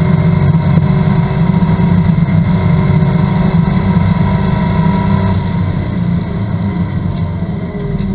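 Corvette race car's V8 engine heard from inside the cockpit at full throttle near top speed, a steady loud drone. About five seconds in the driver lifts off and brakes hard, and the engine note falls as the car slows.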